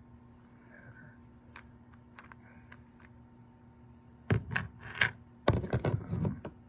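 Small hard clicks of a screwdriver and its steel bits being handled, scattered and faint at first, then a loud run of clattering and rattling about four seconds in.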